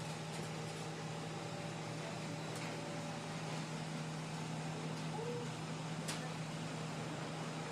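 Steady low hum over faint street background noise, with a few soft clicks.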